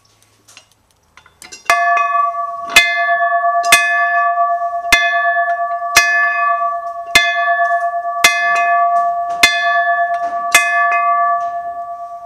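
Large yoke-mounted train bell rung by pulling its rope: the clapper strikes about ten times, roughly once a second, over a steady ringing tone that begins to fade near the end. A few faint knocks come before the first strike.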